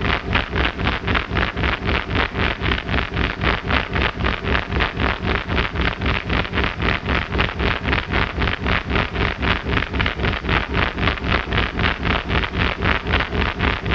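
Experimental electronic noise music from magnetic pickups and analog electronics: a dense, buzzing noise that pulses evenly about four times a second over a steady low hum.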